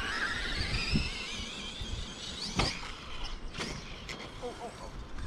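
Electric motor of a hobby-grade RC car whining as it speeds away, its pitch rising over the first two seconds and then fading, over wind rumble on the microphone. Two sharp clicks come midway.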